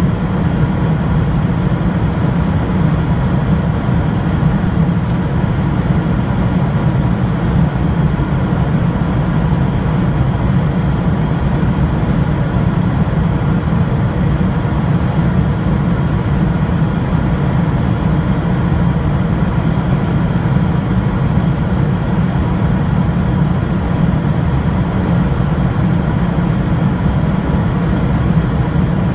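Boeing 747 cabin noise in flight: a loud, steady rumble of engines and rushing air, heaviest in the low range, with a few faint steady tones above it.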